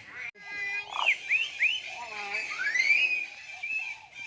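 Common hill myna whistling: a quick run of short arched whistles, then one long whistle that rises and falls, with some speech-like mimicry.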